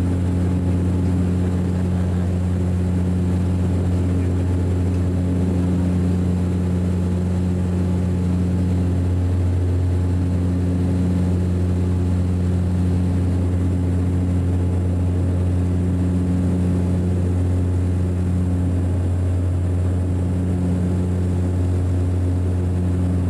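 Inside the cabin of a DHC-8 Q400 turboprop climbing just after takeoff: the six-bladed propellers and engines make a loud, steady low drone, a strong deep hum with fainter evenly spaced hums above it.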